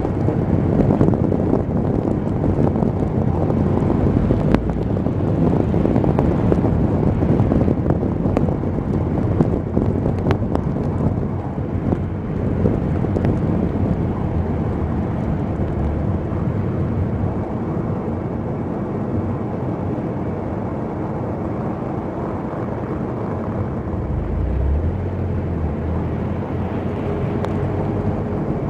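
A car driving: steady road and engine noise, with a few faint clicks.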